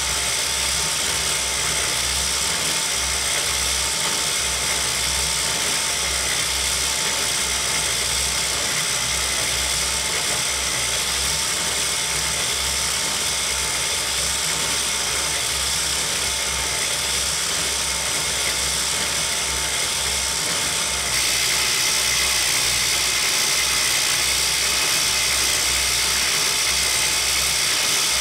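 A motor-driven circular knitting machine built from 3D-printed parts running continuously. Its needle cylinder turns while the latch needles slide up and down, making a steady mechanical whirring noise with a low pulsing under it. About 21 seconds in the sound gets a little louder and brighter.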